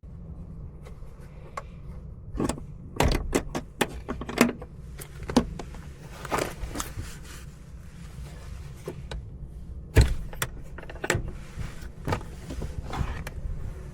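A vehicle running with a steady low rumble, overlaid by a string of sharp clicks and knocks, the loudest about three seconds in and about ten seconds in.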